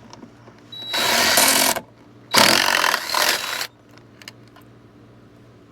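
A power tool running in two bursts of about a second each, spinning off the lock nuts that hold a jet ski's ride plate.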